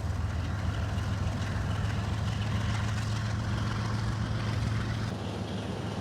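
Diesel engines of two GE Evolution Series locomotives running under load, a steady low drone as the train pulls out; it drops off a little about five seconds in.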